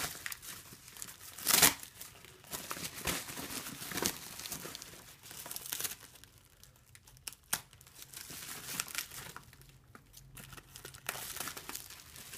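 Bubble wrap crinkling and rustling as it is unwrapped by hand, in uneven spells, with a loud rustle about a second and a half in and quieter stretches in the middle.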